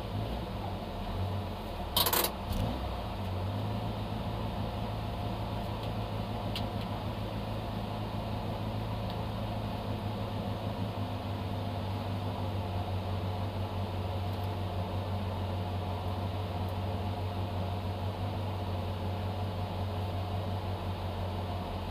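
Citroën AX GTI rally car's four-cylinder engine idling steadily, heard from inside the cabin, with one short sharp clack about two seconds in.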